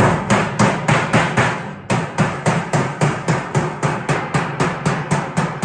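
Hammer tapping the male and female edges of a sheet-metal box seam together, a steady run of sharp metallic blows about three a second with a short pause about two seconds in.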